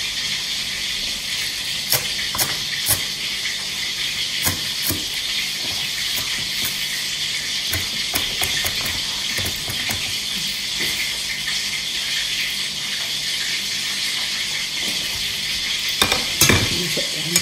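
Kitchen knife chopping spring onions on a plastic cutting board: sharp knocks at irregular intervals over a steady hiss, with a cluster of louder knocks near the end.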